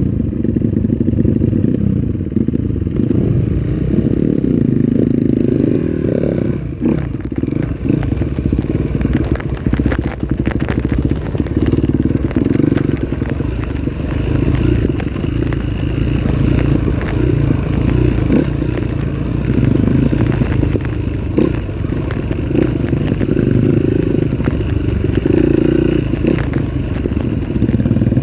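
Off-road trail motorcycle engine running, its sound wavering with the throttle, with scattered knocks and clatter.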